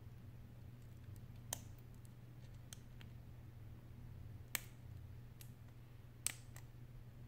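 Three sharp little clicks, a couple of seconds apart, from small parts being worked with a toothpick on a disassembled Sony Xperia Z3's frame, over a steady low hum.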